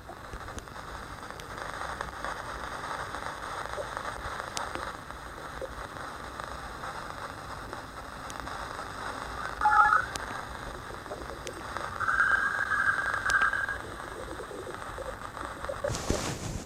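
A 'planet sound' space recording: steady static-like hiss with scattered crackles and clicks, a brief louder pitched blip about ten seconds in, and a louder buzzing stretch from about twelve to thirteen seconds.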